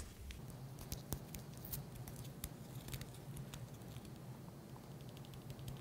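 Faint crinkling and scattered small clicks of a yeast packet being worked open by hand, over a low steady hum.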